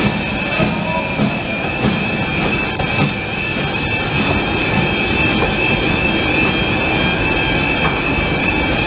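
Railway passenger coaches rolling slowly past close by, their wheels rumbling on the rails with a few knocks over the rail joints and a steady high-pitched wheel squeal.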